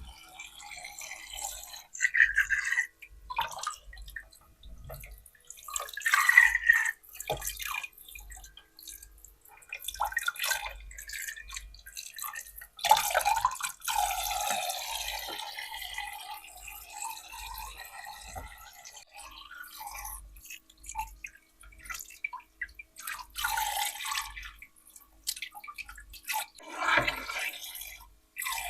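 Water from a toy sink's tap dripping and splashing in short, irregular bursts, with a longer run of flowing water about 13 seconds in.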